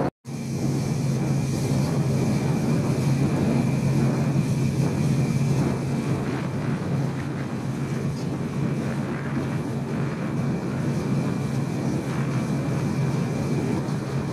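Ferry engines running with a steady low drone, mixed with the rush of wind and water on deck. A brief dropout just after the start.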